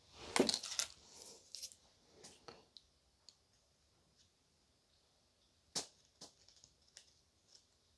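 Small plastic toy cake decorations being handled and set down: a short run of rustles and taps at the start, then a few separate light clicks later on.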